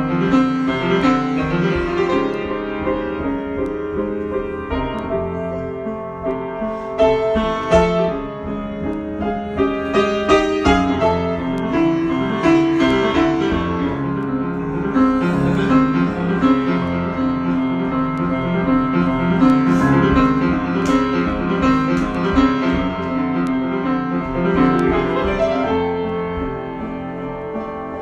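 Solo piano improvisation, with many notes played continuously as chords and melody.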